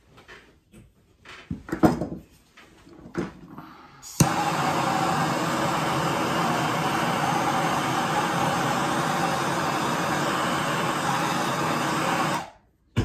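Handheld gas torch lit with a sharp click about four seconds in, then burning with a loud, steady hiss for about eight seconds before it is shut off abruptly. Before it, a few knocks and handling sounds.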